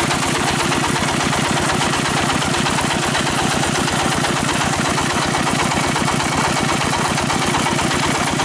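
Dompeng-type single-cylinder diesel engine sound, a steady rapid thumping at about eight beats a second.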